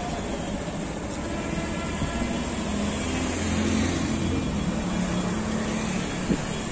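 Road traffic: the steady noise of a busy road, with a vehicle's engine getting louder about halfway through and then easing off. A single short knock near the end.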